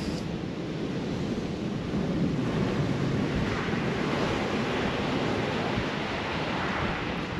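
Surf breaking and washing up a sand beach in gale-force wind, with wind buffeting the microphone; the rush of water swells a couple of seconds in.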